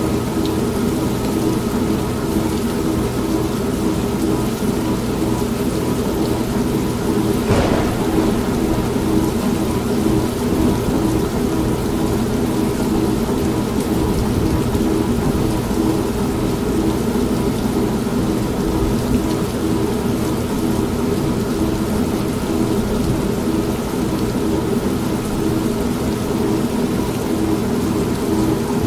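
An old manual washing machine's motor hums steadily, pulsing in a fast, even rhythm, mixed with steady rain. One sharp thunder crack comes about seven and a half seconds in.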